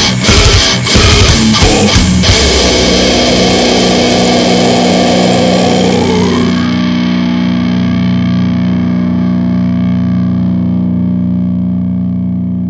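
The close of a death metal song: a few final full-band hits in the first two seconds, then a distorted electric guitar chord left ringing. The chord is held and slowly fades, with a short rising slide partway through.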